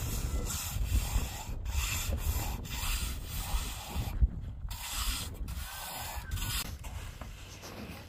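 A hand trowel scraping and smoothing wet cement mortar across a roof in repeated strokes, with wind rumbling on the microphone.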